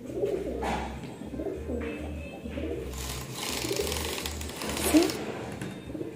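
Pigeons cooing at a nest of two squabs: low, wavering coos, with a short rising call near the end that is the loudest moment. A rustling scrape comes in the middle.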